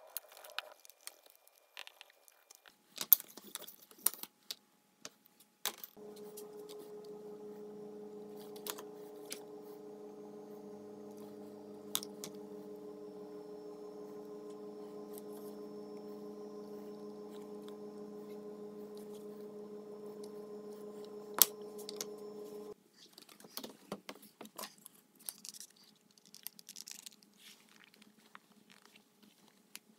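Leather hand tools working a holster on a granite slab, making scattered sharp clicks and taps. A steady droning hum starts about a fifth of the way in and cuts off suddenly about three quarters through.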